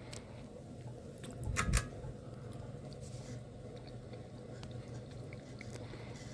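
Harbor Breeze Alaska 42-inch ceiling fan running with a steady low motor hum. Two sharp clicks close together come about one and a half seconds in.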